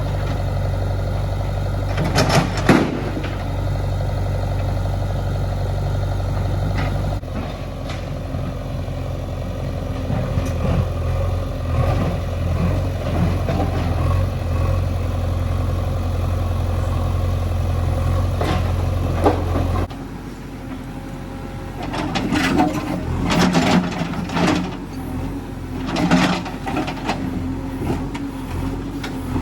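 Heavy diesel engine of the farm machinery running steadily under load. Its note shifts about a quarter of the way in and drops away about two-thirds through. It is followed by a run of sharp clanks and knocks.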